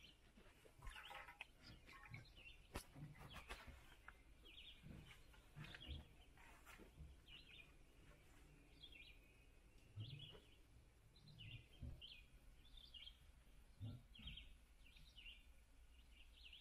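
Near silence with faint bird chirps, short high calls repeating every second or so, and a few faint clicks.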